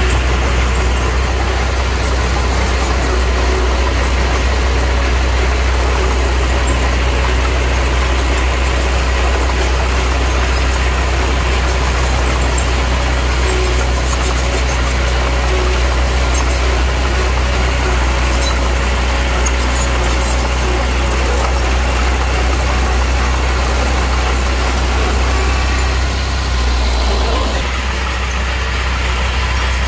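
Heavy construction-machine diesel engine running steadily, dipping briefly in level near the end.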